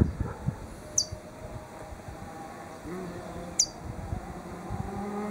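A small bird gives two short, high, falling chirps a few seconds apart, over a low outdoor rumble.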